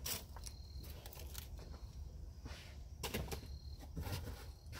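Small packaged craft items being handled and sorted in a box: a string of light, irregular clicks and plastic rustles.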